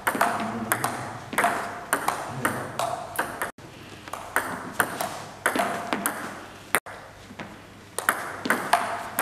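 Table tennis rally: the ball clicking off the paddles and bouncing on the table, about two hits a second, each click ringing briefly in a large gym hall. The sound drops out abruptly twice.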